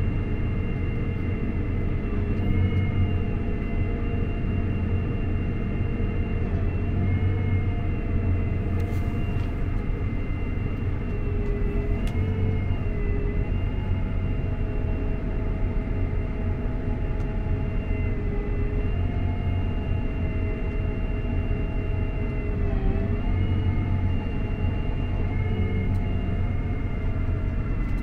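Combine harvester running while unloading canola seed through its auger, heard from inside the cab: a steady low engine rumble with a high whine from the machinery that dips slightly in pitch a few times.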